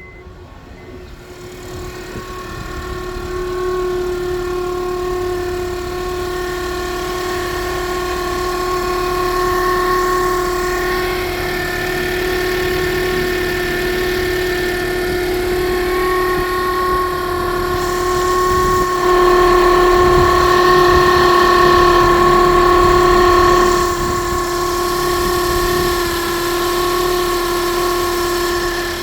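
Honda CR-V engine running with a steady whistling whine of several tones over the low engine rumble, a strange noise whose cause is unknown. The whine builds over the first few seconds, grows louder for a few seconds past the middle, then settles back.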